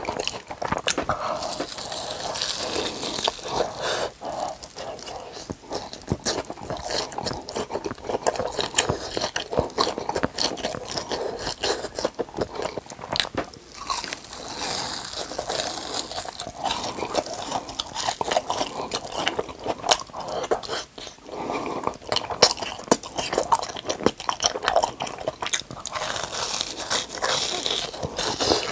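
Close-miked eating of deep-fried cheese roll cutlets: bites into the crisp breadcrumb crust and chewing, a dense run of crunching and crackling clicks.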